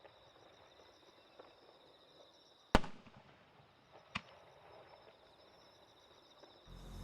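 Two fireworks bangs, a loud sharp one about three seconds in and a weaker one a second and a half later, over steady high insect chirring.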